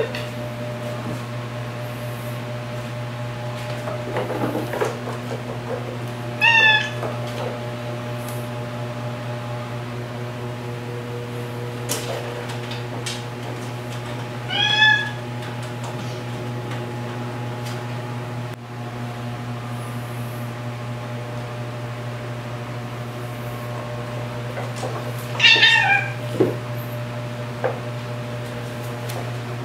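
A cat meowing three times, short and high-pitched, about six, fifteen and twenty-five seconds in, over a steady low hum.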